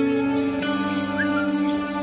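Background music with slow, sustained notes; the chord changes about half a second in.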